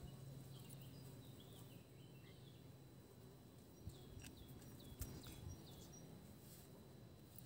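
Near silence: faint outdoor background with a few short, high bird chirps here and there, and a couple of soft clicks about four and five seconds in.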